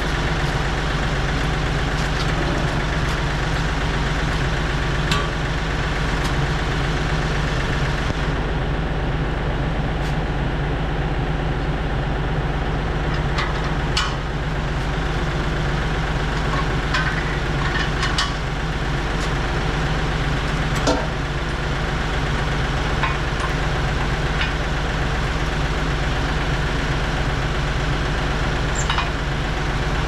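Tractor engine idling steadily, with scattered sharp metal clanks and clicks as a middle buster plow is hooked onto the three-point hitch.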